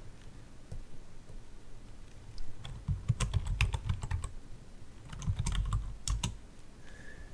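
Typing on a computer keyboard: two short runs of keystrokes, the first about three seconds in and the second about five seconds in.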